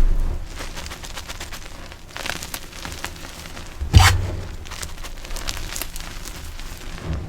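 Dyed gym chalk blocks being crushed, with crisp crunching and crumbling, a burst of crunches about two seconds in, and one loud sharp crunch about four seconds in.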